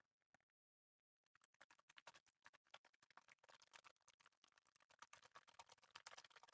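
Close-miked ASMR water sounds made fast and aggressively: a dense, quick crackle of small splashes and taps. It breaks off for under a second near the start, then resumes and builds.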